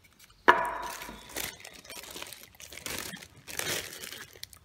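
A knock about half a second in, then clear plastic wrapping crinkling in several bursts as a boxed audio interface is lifted and turned in it.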